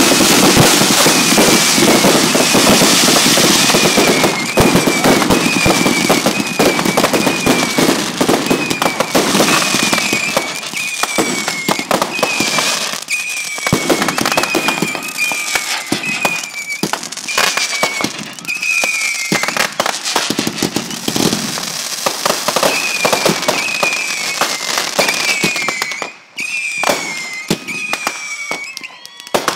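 Fireworks going off: a dense stream of bangs and crackling, loudest in the first few seconds and then continuing as scattered pops and crackle. Through it a short high chirp repeats about three times every two seconds.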